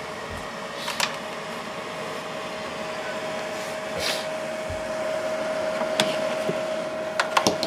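EcoFlow Delta 2 portable power station's cooling fans running under a 684 W load, a steady 'shaa' hiss with a steady hum tone in it. A few light clicks come near the end.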